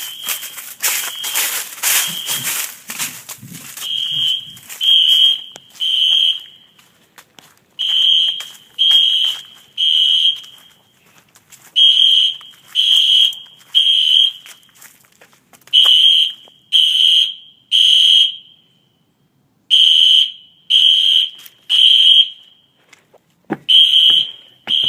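Smoke alarm sounding the temporal-three evacuation pattern: three high, piercing beeps about a second apart, then a short pause, repeating. It starts about four seconds in, after some scuffling noise.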